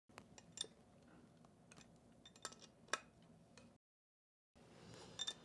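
Faint metallic clicks and clinks of a flat spray-gun wrench working loose the needle packing nut on a metal HVLP spray gun body: a handful of separate ticks, the loudest about three seconds in.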